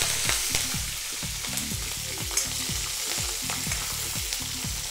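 Green chillies, curry leaves and cumin seeds sizzling in hot oil in a kadai, stirred with a spatula, with light pops and scrapes through the frying hiss.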